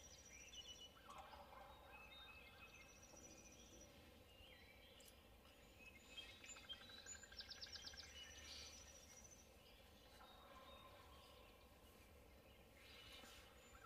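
Faint dawn chorus of songbirds in woodland: scattered chirps, whistled notes and trills, with a rapid ticking trill a little past the middle.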